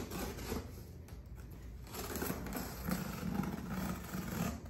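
Packing tape on a cardboard box being cut and pulled at by hand, with scraping and rustling on the cardboard; a longer run of scraping starts about two seconds in.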